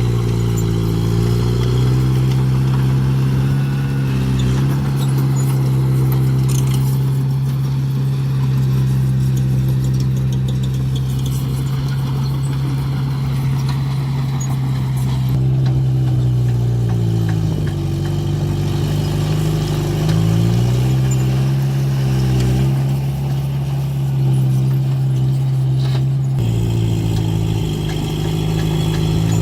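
Heavy diesel engine of construction machinery running steadily. Its engine note dips and recovers a few times.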